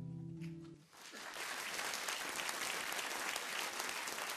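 Final strummed acoustic guitar chord ringing out and fading, then an audience applauding from about a second in.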